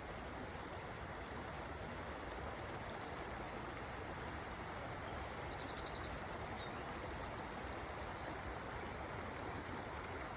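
Stream water running with a steady, even rush. A brief faint high trill sounds about halfway through.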